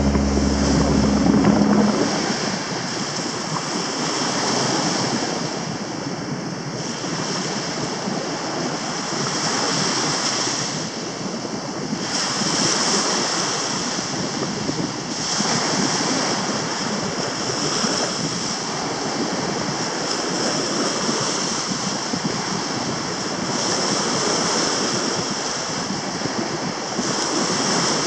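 Gulf of Mexico surf breaking and washing up the beach, a steady rush that swells every few seconds as waves come in. Background music ends about two seconds in.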